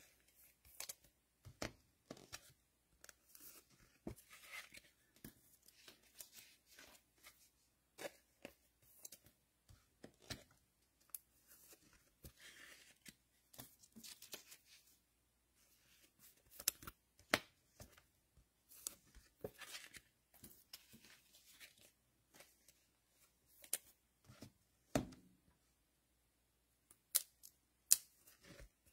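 Faint, irregular tearing, rustling and small clicks of card packaging and plastic being handled by hand in a small room.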